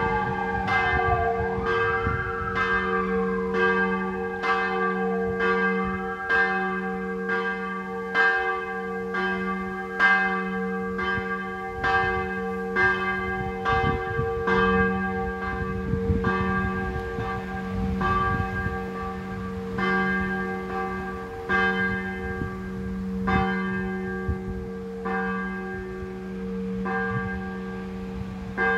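Several church bells swinging and pealing together from the tower, a steady run of overlapping strikes over long ringing tones. A siren wails down and up across the first few seconds.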